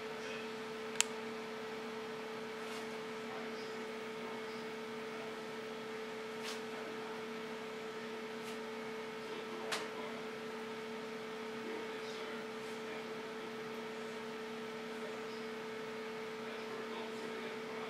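A steady hum held at two pitches, with a few short clicks over it; the sharpest click comes about a second in.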